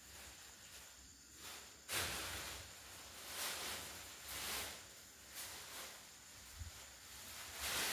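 Thin polythene bag crinkling and rustling in repeated bursts as kittens paw and push at it. The loudest burst comes suddenly about two seconds in, another near the end.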